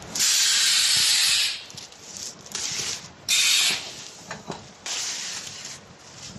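Pneumatic hissing from factory machinery in three sharp-edged blasts: a long one lasting over a second, then a short one about three seconds in, and another near the end, over a low mechanical clatter.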